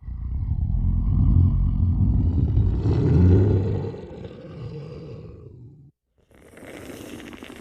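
Film monster growl sound effect: a loud, low growl that starts abruptly and weakens before cutting off about six seconds in. After a short gap, a fainter, hissier growl begins.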